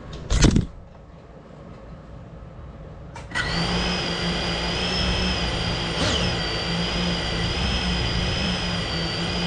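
A sharp thump about half a second in. About three seconds in, the GEPRC Cinelog 35 FPV drone's brushless motors spin up to a steady idle whine while it sits still on the floor, armed and ready for takeoff.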